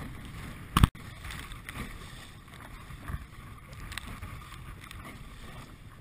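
Wind buffeting the microphone over choppy water splashing around a pedal kayak's hull. About a second in there is one very loud, short thump that cuts off abruptly, with a few smaller splashes later.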